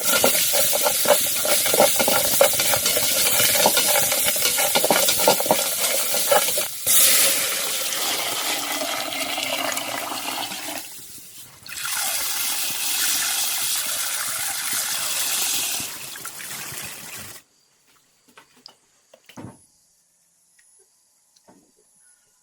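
Loud rush of running water with a brief dip about eleven seconds in. It stops suddenly after about seventeen seconds, leaving only a few faint knocks.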